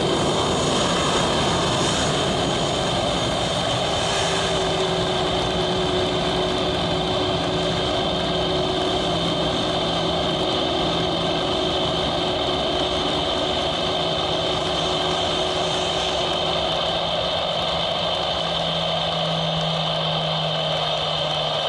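Airbus A320's CFM56 jet engines running steadily with a high whine as the airliner moves along the runway.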